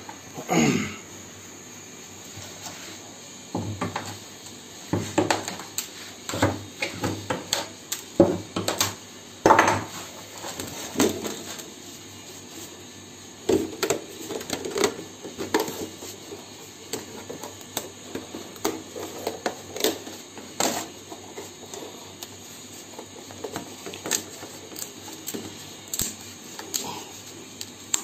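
Hand work on a sunmica laminate sheet: irregular scraping strokes and light clicks and taps of hard laminate and tools.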